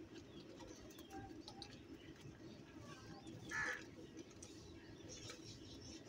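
House crows feeding, with one harsh caw about three and a half seconds in over a low, steady background murmur and scattered faint ticks.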